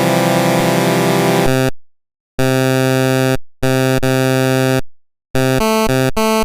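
Buzzy, harsh synthesizer-like chords from a vocoder-processed logo sound effect. They cut out to silence twice, about two seconds in and again around five seconds in, then switch rapidly through short chords near the end.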